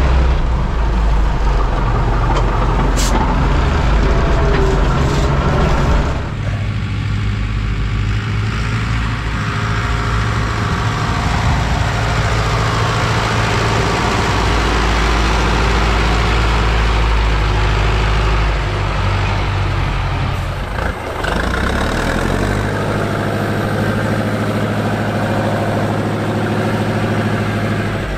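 Fortschritt ZT 300 tractor's six-cylinder diesel engine running under load as it pushes snow with its front plough blade, heard first from inside the cab and then from outside. The engine sound changes abruptly about six seconds in and again about twenty-one seconds in.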